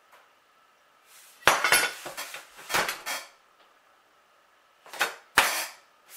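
Small metal toy-tractor parts clinking and knocking as they are handled on a workbench. There is a run of clatters about a second and a half in, then two sharp knocks near the end.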